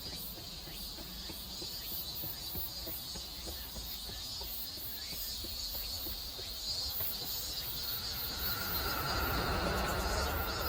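Insects singing steadily in a high, shrill chorus with a fast pulsing trill above it. About eight seconds in, a lower steady tone and a low rumble grow louder.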